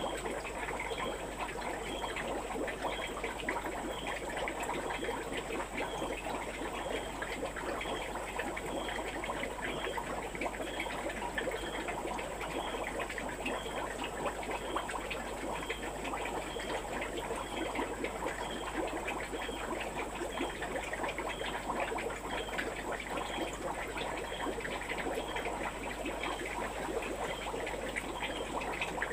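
Steady trickling, bubbling water, with a faint high chirp repeating about every three-quarters of a second and a thin, steady high whine.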